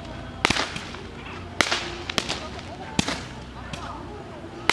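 Fireworks going off overhead: about half a dozen sharp cracks and bangs at irregular intervals, one pair close together early on and single reports after that.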